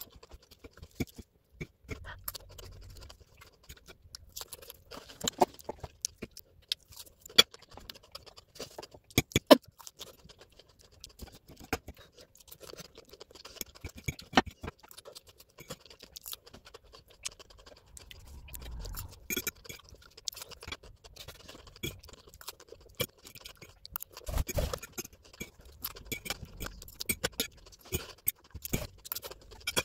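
Eating a salad: a fork clicking and scraping against the plate in scattered sharp clicks, with chewing.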